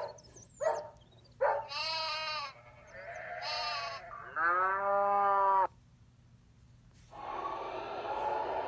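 Recorded animal calls played back from a children's animal-sound app through a tablet speaker: two short calls, then three longer, wavering calls one after another. About seven seconds in a recorded train sound starts and runs on steadily.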